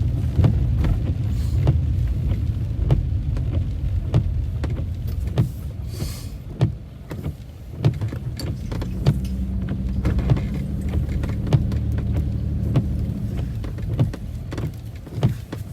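Low rumble of a Jeep on BFGoodrich KO2 all-terrain tyres, heard from inside the cabin while driving, with scattered knocks and clicks throughout. A faint steady hum comes in about halfway through and fades out a few seconds later.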